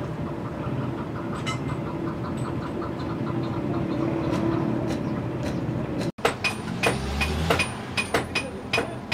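A steady machine hum with a faint, even ticking for about six seconds. After an abrupt cut comes a run of sharp, ringing clinks of metal being struck, about three a second, in a blacksmith's workshop.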